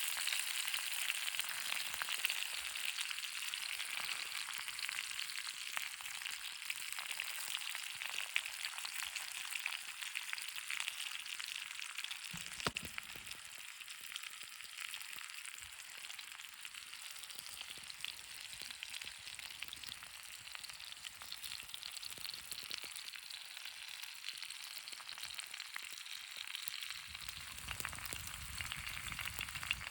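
Food sizzling in a pan over a campfire: a steady hiss with fine crackles. A low rumble comes in near the end.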